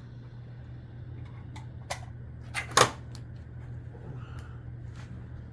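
A few sharp mechanical clicks and knocks of gear being handled at a shooting bench, the loudest about three seconds in, over a steady low hum.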